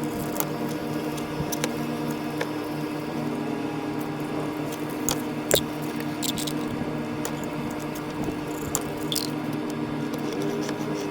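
Scattered small clicks and taps of hands working loose the wiring of a spa controller, with one sharper click about halfway through, over a steady low hum.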